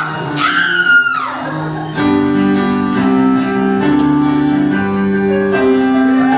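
Theatre melodrama accompaniment music. A high held note slides down in pitch in the first second or so, then from about two seconds in, sustained keyboard chords change every second or so.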